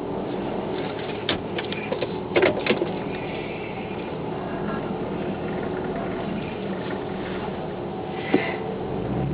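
2001 Ford SVT Lightning's supercharged 5.4-litre V8 idling steadily, heard from inside the cab while waiting to launch. A few clicks and knocks come about two seconds in, and a single knock comes near the end.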